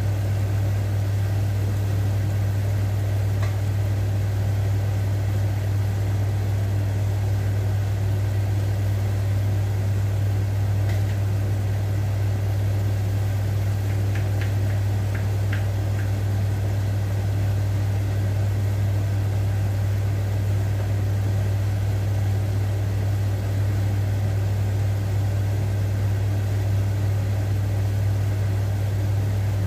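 A steady low hum from a motor or appliance, the loudest sound, over the bubbling of a pot of water at a rolling boil. A few faint clicks fall around the middle.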